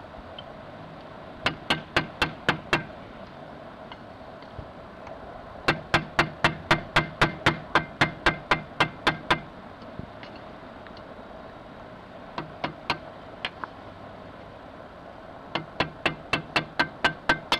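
Runs of sharp, evenly spaced metallic clicks, about four a second, as an outboard motor's propeller is turned and worked by hand on its shaft. There are four runs, the longest in the middle, over a faint steady hum.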